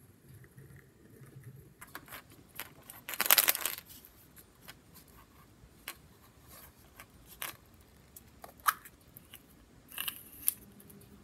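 Hands handling small plastic toys and a glitter-coated plastic surprise egg: scattered clicks and rustling, a longer rustle about three seconds in, and sharp clicks near the end as the egg's two plastic halves are pried apart.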